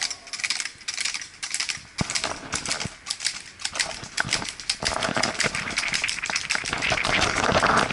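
Hooves of several horses clip-clopping on a paved road in a rapid, overlapping run of clicks. A rushing noise builds from about five seconds in.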